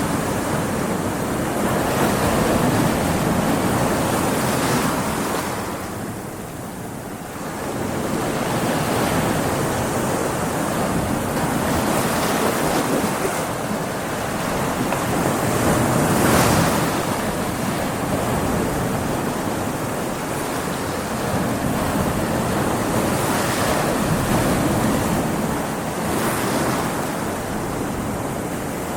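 Ocean waves breaking against rocks: a continuous rushing wash of surf that swells and ebbs every few seconds, with a sharper slap of water about halfway through.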